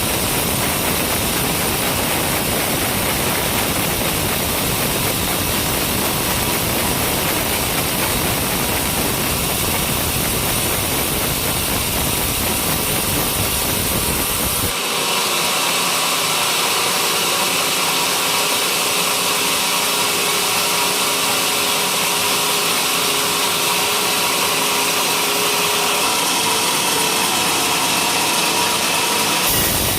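Homemade sawmill running steadily while sawing coconut-palm timber, a constant loud mix of machine drone and saw noise. About halfway through the sound changes abruptly: the low rumble drops out and a higher, hissing whine with steady tones takes over.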